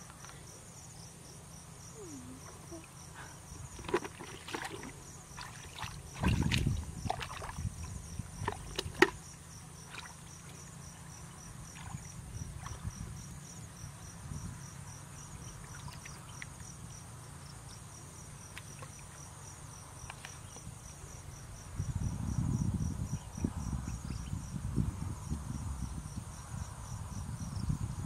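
Insects chirping in a steady, evenly pulsing trill, with low sloshing and splashing of muddy water as someone wades and grabs fish by hand. The sloshing is loudest about six seconds in and again from about twenty-two seconds on.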